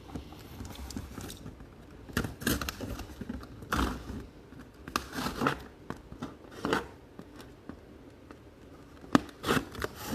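A packaged box being opened by hand: irregular short bursts of cutting, tearing and crinkling of cardboard and plastic wrapping, a second or so apart.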